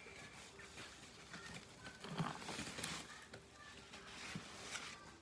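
Soft rustling and small clicks of packaging being handled: a silky drawstring dust bag and its wrapping being opened around a handbag.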